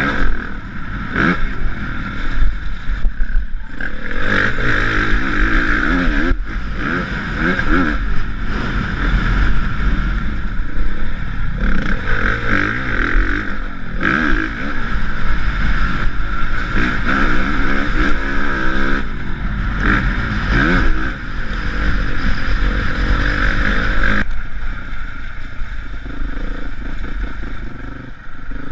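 Honda CRF450 dirt bike's single-cylinder four-stroke engine heard from the rider's helmet camera, revving up and down repeatedly while the bike is ridden hard, with wind noise over the microphone. About 24 seconds in, the engine drops to a lower, quieter run as the bike slows.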